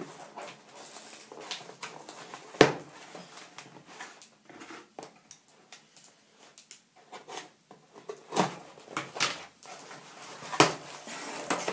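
A small cardboard box and its packing being handled and opened by hand: rustling and crinkling with scattered clicks, and one sharp knock about two and a half seconds in.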